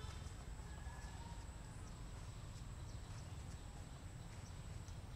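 Quiet outdoor forest ambience: a steady low rumble, a thin, constant high-pitched whine and scattered faint clicks, with a brief whistle-like note about a second in.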